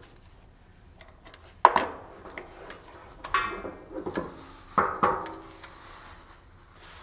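Metal clinks and clanks with short ringing as the toothed timing-belt wheel of a Dynapac CO4200 VI drum is worked free with the bolted cover and tools and pulled off its conical shaft: a few light clicks about a second in, then several louder knocks, two of them sharpest.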